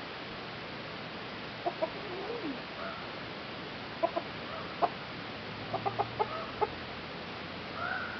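Chickens clucking: short, sharp clucks, a few singly and then a quick run of about five just past the middle, with a couple of longer, higher calls.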